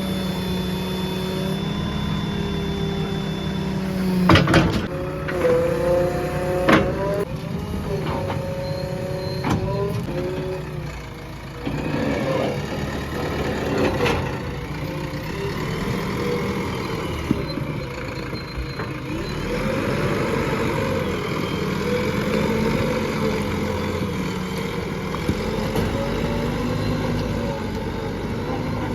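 JCB 3DX backhoe loader's diesel engine running, its pitch rising and falling over and over as the hydraulics are worked. Several sharp clanks come in the first half.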